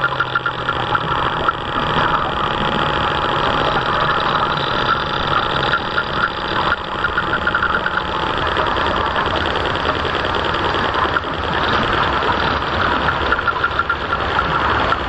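Radio-controlled scale model boat under way, its motor running steadily with water washing along the hull, heard up close from its own deck.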